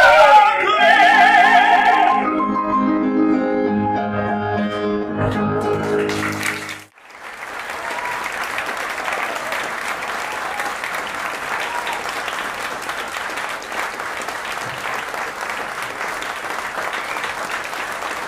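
Operatic voices end their last sung phrase over piano, and the piano's closing chords ring on until they stop abruptly about seven seconds in. Then an audience applauds steadily.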